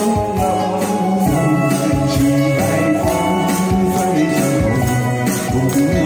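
An upbeat song played live over a PA, with a steady beat and jingling tambourine-like percussion.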